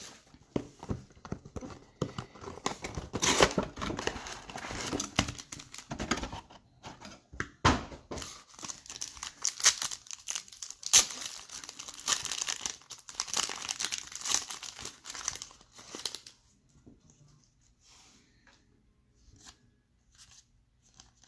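Trading-card pack wrapper being torn open and crinkled, with sharp crackles and rustling. The crinkling stops about three-quarters of the way through, leaving only faint ticks of cards being handled.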